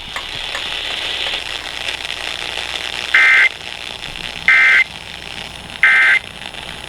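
Emergency Alert System end-of-message code: three short bursts of SAME digital data tones, each about a third of a second long and about 1.3 s apart, over steady radio hiss. The code closes a broadcast weather warning.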